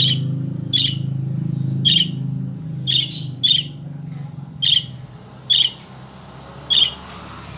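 A bird giving short, sharp single calls, eight in all, about one a second, over a low steady hum that fades away by the middle.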